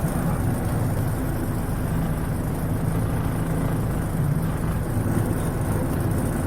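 Ford 555 backhoe loader's engine running steadily under way, a constant low hum with no change in pitch.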